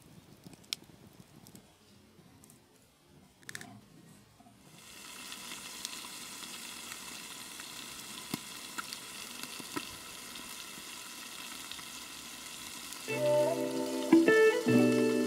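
A few faint crackles from the wood fire, then from about five seconds in a steady sizzle of chicken cooking in a lidded cast-iron skillet over the embers, with scattered pops. Music comes in near the end.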